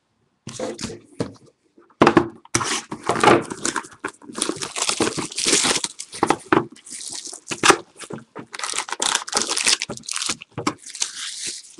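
Sealed trading-card boxes and packs being torn open by hand: wrappers and packaging tearing and crinkling in irregular bursts, picking up about two seconds in.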